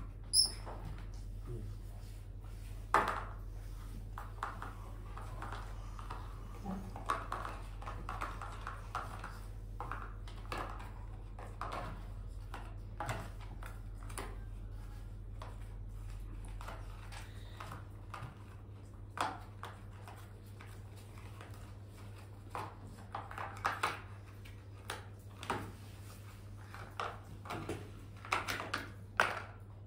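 Scattered light knocks, taps and clicks, irregular and at times in quick clusters, over a steady low hum that fades about two-thirds of the way through.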